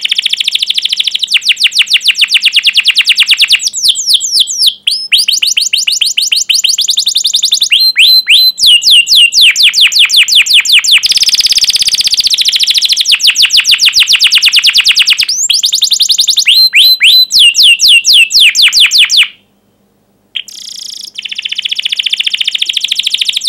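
Domestic canary singing loudly in long runs of rapid, sharp 'cuit cuit' chirps and rolling trills, several notes a second, with about a second's silent break near the end before the song starts again.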